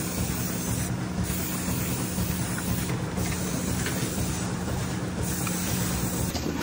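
Aerosol spray can hissing in long sprays with brief breaks about every two seconds, over a steady low machine hum.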